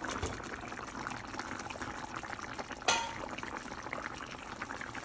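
A pot of kaldereta braising sauce bubbling and crackling at a simmer as raw chicken pieces drop into it. A single sharp metal clank with a short ring comes about three seconds in.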